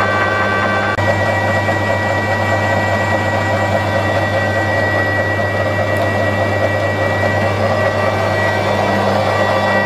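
Steady machine hum with a constant high whine running through it, briefly cut by a short dropout about a second in.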